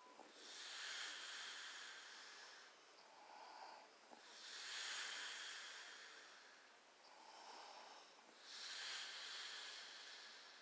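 A sleeping woman snoring faintly: three long, hissing breaths about four seconds apart, each led by a softer, lower breath.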